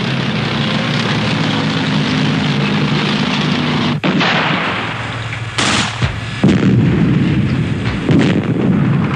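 Battle sounds: a steady engine drone with noise, broken off suddenly about four seconds in, then gunfire and explosions with several abrupt loud blasts.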